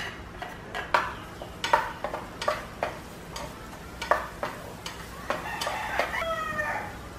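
Wooden spatula stirring minced garlic in oil in a pot, knocking and scraping against the pan about once a second. A rooster crows once near the end.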